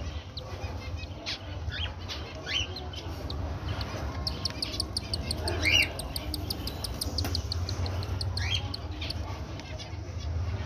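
Cockatiel chicks begging while an adult cockatiel feeds them beak to beak. There are short high squeaks sliding downward every second or two, and a fast run of ticking chirps for about three seconds in the middle, over a low steady hum.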